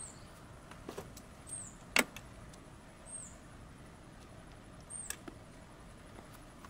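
A few sharp metallic clicks, the loudest about two seconds in and another pair about five seconds in, as a cable lug is tightened onto the car battery's negative terminal with a socket. Short, faint high chirps recur every second and a half or so.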